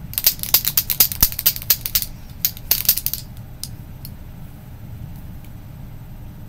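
Pencils and pens clacking and rattling against each other in a full pencil cup as they are rummaged through and pulled out: a quick flurry of clicks, a second shorter flurry, then a few single taps.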